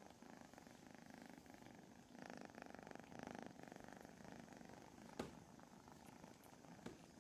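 Kitten purring steadily close to the microphone, swelling louder for about a second and a half near the middle. A sharp click cuts in about five seconds in, and another near the end.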